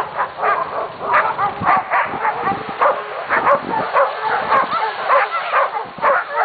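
A pack of dogs barking, yipping and howling together, many short overlapping calls that bend in pitch, a few each second, with no break.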